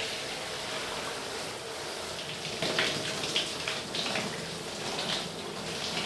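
Shower running: a steady hiss of falling water, with a few louder spatters.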